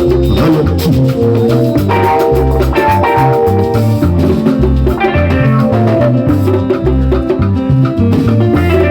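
Instrumental music with a bass line and percussion keeping a steady beat, and pitched instrument parts above.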